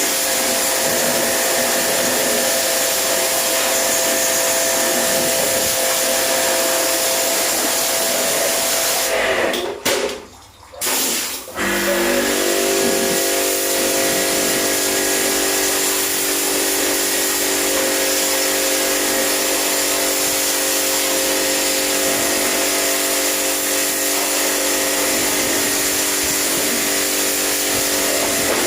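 Electric pressure washer running, its motor whining steadily under a loud spray hiss of water jetting onto the air-conditioner parts being cleaned. It stops for a couple of seconds about ten seconds in, then starts again.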